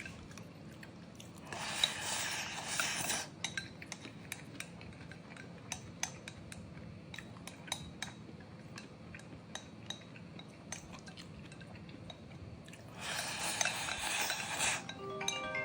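Eating utensils clicking and clinking against dishes, with two longer stretches of scraping, about a second and a half in and again near the end.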